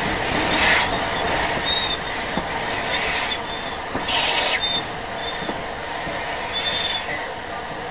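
Rebuilt Battle of Britain class steam locomotive (a three-cylinder Bulleid Pacific) running slowly, heard from on board: a steady rumble of the train with short bursts of hiss every second or two and brief high squeals from the wheels.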